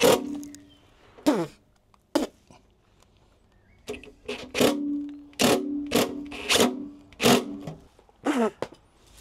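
Cordless drill-driver driving a screw and washer through a mud-flap bracket into the van's bodywork. There is a sharp knock at the start and a whine falling in pitch about a second in as the motor winds down. From about four seconds in comes a run of short trigger bursts, the motor humming with sharp clicks and knocks, ending about eight seconds in.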